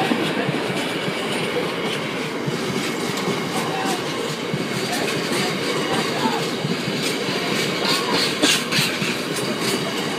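Freight train wagons rolling past at close range, the wheels clattering in a rhythmic, beatbox-like beat over the rail joints, with a few sharper clacks near the end.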